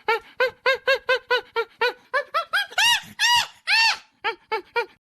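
Monkey calling in a rapid series of short hoots, about four or five a second, rising into three longer, louder, higher-pitched shrieks midway, then falling back to short hoots that stop just before the end.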